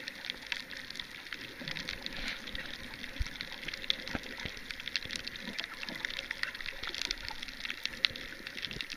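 Underwater ambience picked up by a camera beneath the sea: a steady crackle of many small clicks over a faint hiss of water.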